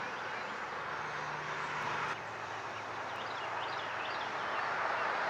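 Steady rush of a Loram rail maintenance car creeping along the track toward the listener, slowly growing louder, with songbirds chirping a few times midway.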